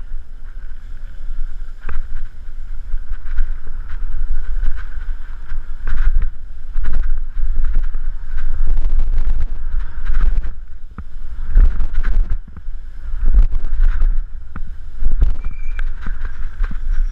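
Wind buffeting the microphone in a steady low rumble as a BMX bike is ridden over a dirt-jump trail, with repeated knocks and rattles from the bike over bumps and landings, more frequent in the second half.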